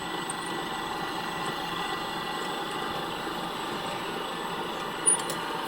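Steady, even machinery noise with faint high steady tones, and a single short click about five seconds in.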